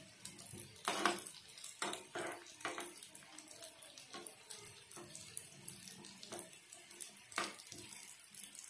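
Steel spoon stirring and scraping cashews, almonds and raisins around a steel kadai as they fry in ghee, with irregular scrapes and knocks against the pan over a steady sizzling hiss. The loudest knocks come about a second in and near the end.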